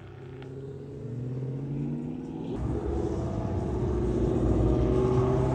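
A car engine revving up, rising in pitch and growing steadily louder, with a heavier low rumble from about halfway through.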